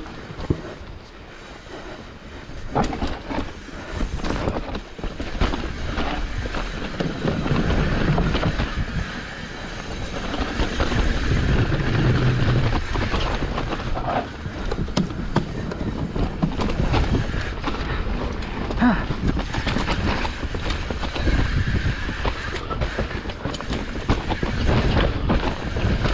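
Hardtail mountain bike rolling down a rough trail: tyres rumbling over dirt and rocks, with the chain and frame rattling and knocking over the bumps.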